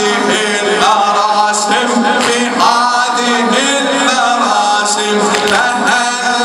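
A man chants an Arabic Muharram lament (latmiya) loudly through a microphone, in long sung phrases with short breaks. A few short, sharp hits are heard along with the voice.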